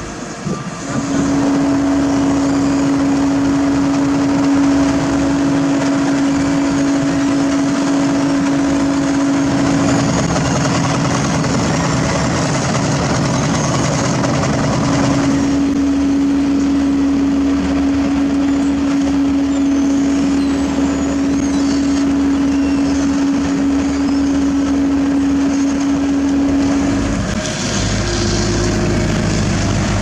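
Hamm HD70 tandem asphalt roller running close by as it rolls over fresh asphalt: a steady machine drone with a constant hum that sets in about a second in and changes near the end.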